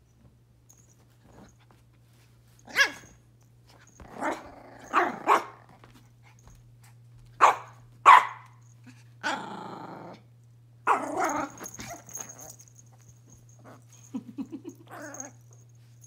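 Pomeranian puppies play-fighting, giving a string of short sharp barks and growls, with a few rapid growling pulses near the end.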